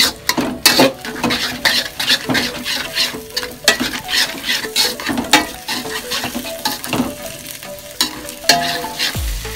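Metal spatula scraping and stirring scrambled egg around a metal wok, about two strokes a second, over the sizzle of the egg frying.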